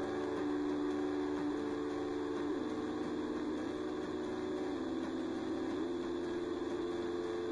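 Sustained electronic tones from a sampler or synth: a steady hum-like drone of a few held notes that shifts down and back up in pitch about once a second.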